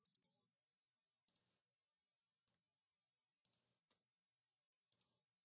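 Faint computer mouse-button clicks while a file dialog is worked: a quick run of clicks at the start, then single clicks and double-clicks spaced about a second apart.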